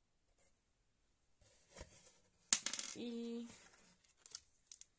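Paper leaflets and the cardboard box being handled: rustling and crackling, with a sharp click about two and a half seconds in and a short steady hum right after it, then a few faint ticks.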